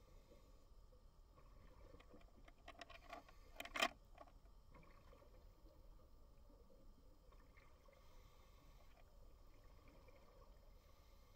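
Near-silent underwater ambience with a faint low hum and a short cluster of clicks and crackles about three seconds in, ending in one sharper click.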